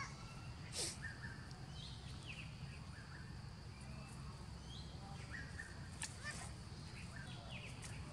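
Birds chirping outdoors: short high calls again and again over a steady low rumble. Two sharp clicks stand out, about a second in and about six seconds in.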